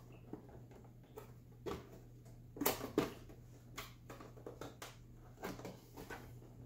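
Hands working at the plastic side cover of an XYZ da Vinci 3D printer, trying to pry it off: scattered small clicks and knocks of plastic, with two louder knocks close together about three seconds in.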